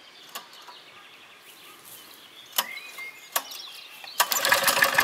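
Faint outdoor background with a few scattered clicks and a short bird chirp, then about four seconds in a second-long rapid rattling whirr of the Castelgarden petrol lawnmower's recoil starter cord being pulled, the old engine not catching.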